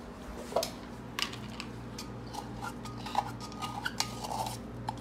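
Scattered light clinks and taps of kitchen utensils and containers being handled while baking powder is measured out, over a faint steady low hum.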